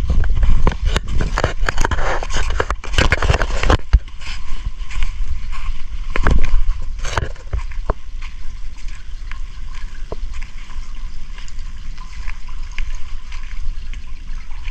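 Footsteps knocking along a concrete pipe over a steady hiss of flowing creek water, with wind rumbling on the microphone.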